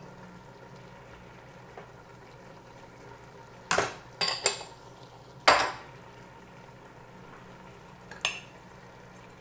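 Metal kitchenware clanking: about five sharp strikes, some ringing briefly, in the middle and once near the end, over a steady low hum.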